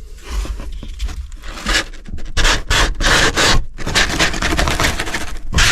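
Cardboard box and packaging scraping and rustling in irregular bursts as the electric supercharger unit is pulled out of it.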